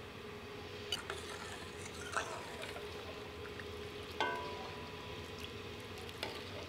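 Steel ladle stirring thin rasam in a stainless steel kadai, quietly, with a few light clinks of the ladle against the pan. The clink about four seconds in rings briefly with a metallic tone.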